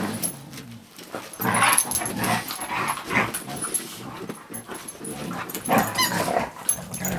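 Two huskies play-fighting: dog vocal sounds and scuffling in irregular bursts.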